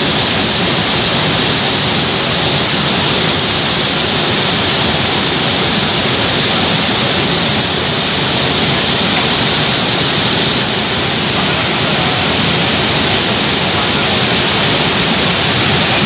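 Waterfall pouring heavy, muddy flow into its plunge pool: a steady, loud rush of falling water.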